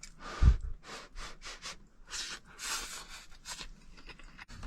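Eating steaming claypot rice: a series of short, soft scraping and breathy rustling noises spread over a few seconds, with a dull knock about half a second in.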